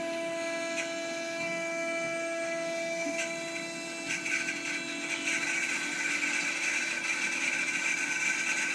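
Haas CNC mill's spindle running with a steady whine as the end mill cuts 1/8-inch aluminum plate. From about four seconds in, a rougher, louder cutting noise joins it.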